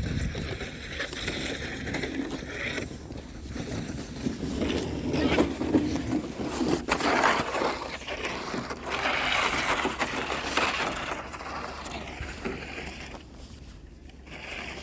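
Crunching and scraping of deep, soft snow in irregular surges, as someone moves or works through it.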